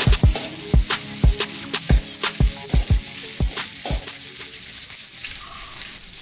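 Lemongrass and garlic sizzling in hot oil in a steel wok, with a metal utensil clacking and scraping against the wok about twice a second as it stirs. The stirring stops about four seconds in, leaving only the sizzle.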